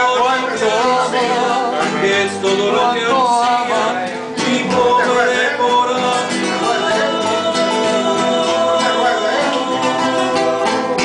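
Men singing a trova song together, accompanied by an acoustic guitar.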